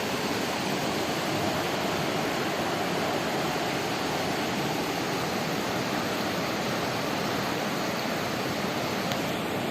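Steady rushing of flowing river water, an even wash of sound with no breaks.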